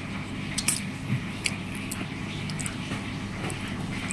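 Quiet, scattered small clicks and soft scrapes of a plastic spoon working in a Kinder Joy's plastic cup of chocolate cream and wafer balls as it is eaten.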